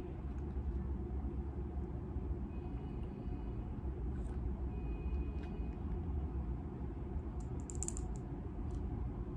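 Steady low background rumble, with a few faint clicks and a short cluster of sharp clicks near the end as a glass dropper bottle is unscrewed and its dropper drawn out.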